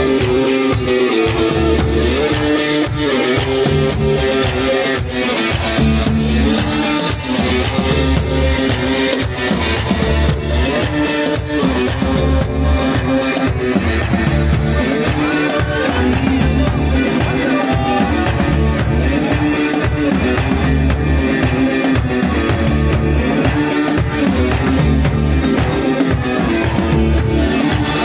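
Live band playing an instrumental with guitar and drum kit over a steady beat.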